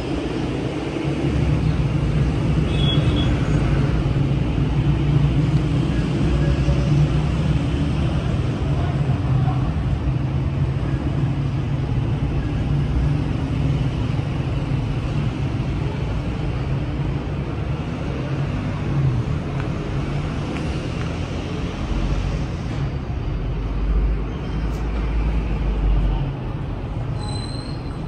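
Steady road-traffic rumble with a heavy engine drone underneath; a deeper rumble swells for a few seconds near the end.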